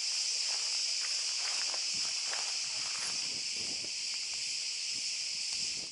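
Steady high-pitched chorus of cicadas, with faint footsteps on dry ground and stone steps underneath.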